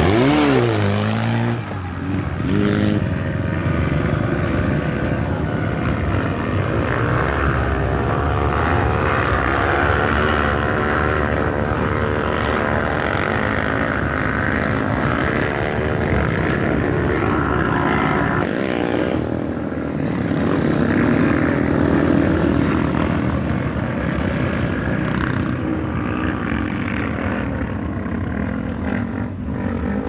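Off-road vehicle engines running under load. In the first two seconds a side-by-side buggy revs up and down as it passes close by, and then a steady engine drone goes on.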